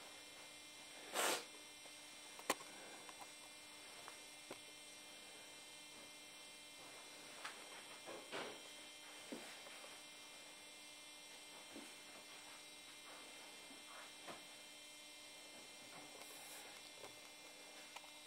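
Steady electrical hum, with a brief burst of noise about a second in, a sharp click about a second later, and a few faint scattered rustles and ticks.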